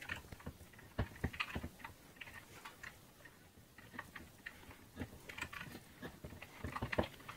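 Faint, scattered metal clicks and ticks of a small nut driver turning fasteners on the end cap of a VIAIR 450C air compressor's motor housing, with a quick run of clicks about a second in.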